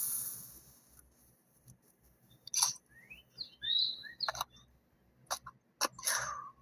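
A chainsaw's motor winds down and stops in the first second. Then a bird chirps with short sliding calls, amid a few sharp clicks and a brief rustling burst near the end.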